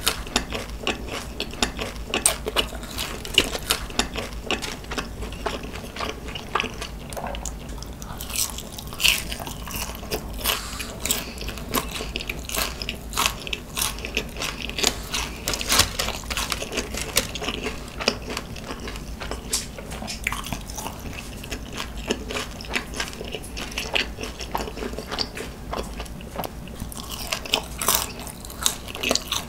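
A person chewing crunchy glazed Korean fried chicken (dakgangjeong), with many irregular crunches.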